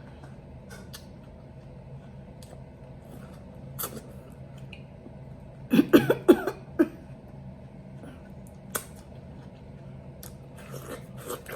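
Quiet mouth sounds of someone eating watermelon slices topped with fruit and whipped cream, with a few faint wet clicks. About six seconds in comes a short fit of several quick coughs.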